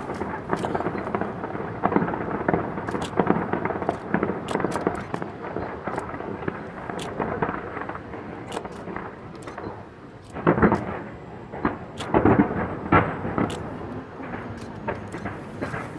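Fireworks bursting in rapid succession, a continuous rumble of booms with sharp cracks and crackle over it. A cluster of louder bangs comes about two-thirds of the way through.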